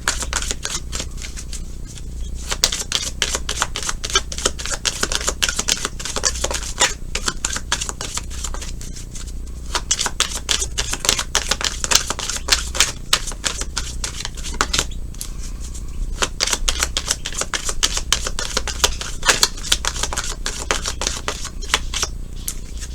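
Tarot cards being shuffled by hand: a dense, irregular run of quick card clicks and flicks, thinning briefly a few times.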